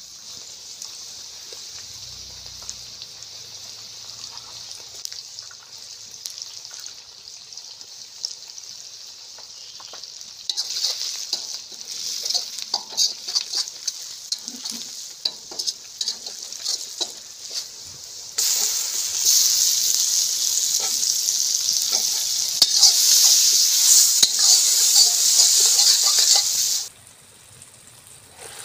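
Chopped onions, garlic and chilli powder sizzling in hot oil in a wok, with a metal spatula stirring and scraping against the pan from about a third of the way in. The sizzle jumps much louder about two-thirds through, then cuts off suddenly near the end.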